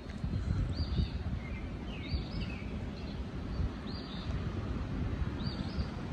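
Northern cardinal singing: a clear whistled note slurring downward, repeated about every second and a half, over a steady low rumble.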